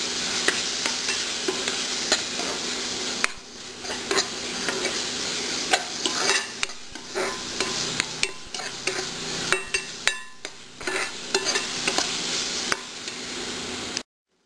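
Metal spatula stirring and scraping a thick masala frying in a metal kadai. A steady frying sizzle for the first few seconds, then many quick scrapes and taps of the spatula on the pan. The sound cuts off abruptly near the end.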